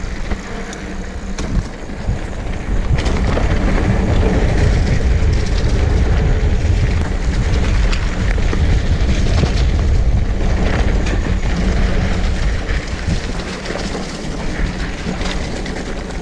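A Rocky Mountain hardtail mountain bike rolling fast downhill on a dirt trail: the tyres crunch over dirt and leaves and the frame gives off many small rattles, under a low rumble of wind on the microphone. It gets louder about three seconds in.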